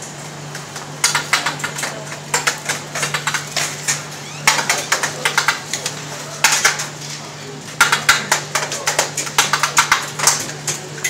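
Metal tongs clinking and clattering against stainless steel serving trays in quick runs of clicks as salads are scooped into a pita, over a steady low hum.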